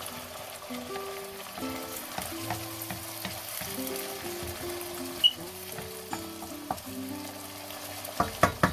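Tuna and sliced red onion frying in oil in a wok, sizzling steadily while a wooden spatula stirs and scrapes through them. Several sharp knocks near the end, as the spatula strikes the pan.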